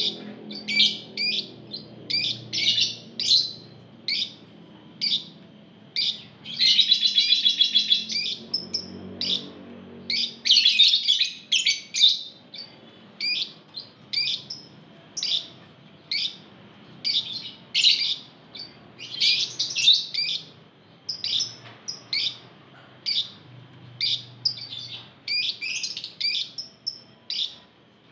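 A flock of Fischer's lovebirds calling: a steady run of short, shrill chirps, with two longer rapid chattering trills about seven and eleven seconds in.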